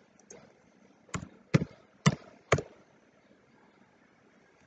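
Four sharp keystrokes on a computer keyboard, about half a second apart, as a number is typed into a settings field.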